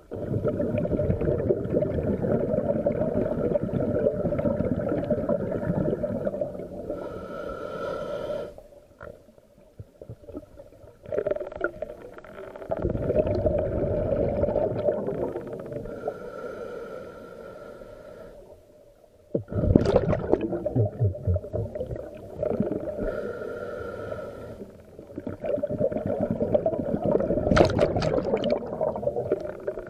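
Scuba diver breathing through a regulator underwater: four long, bubbling exhalations alternate with shorter hissing inhalations.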